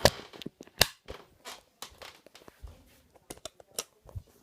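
A run of irregular sharp clicks and knocks, the loudest right at the start and another just under a second in, with smaller ones scattered through.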